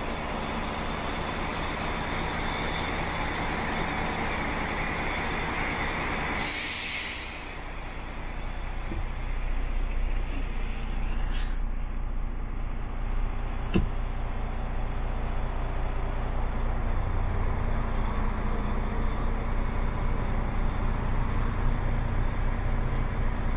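Volvo D12 460 hp diesel engine of a Volvo FH12 tractor unit idling steadily, heard from inside the cab. About a quarter of the way in, compressed air hisses out for about a second, followed about five seconds later by a shorter hiss and then a single click.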